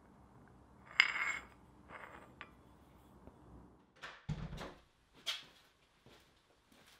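Forged steel pickaroon head clinking against the anvil face once, about a second in, with a short metallic ring, followed by a couple of lighter taps. From about four seconds in come scattered knocks and clicks with one dull thump.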